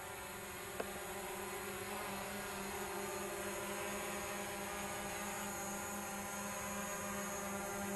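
DJI Mavic Pro quadcopter's propellers buzzing in flight: a steady hum of several whining tones that drift slightly in pitch, with one brief click about a second in.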